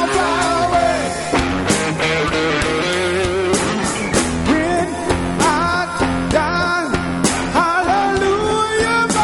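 Band music with a singing voice: a wavering melody over sustained chords, with regular drum hits.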